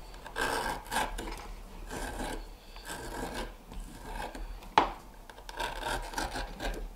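Leather skiver shaving the back of a strip of leather: a run of short scraping strokes, with one sharp click about two-thirds of the way through.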